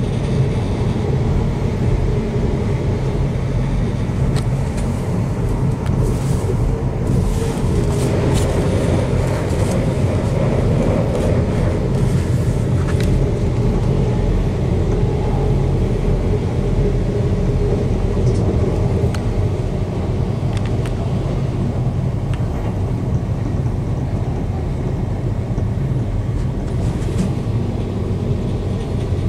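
Running noise inside a passenger train travelling at speed: a steady low rumble with a faint hum, and a few light clicks and rattles around the middle.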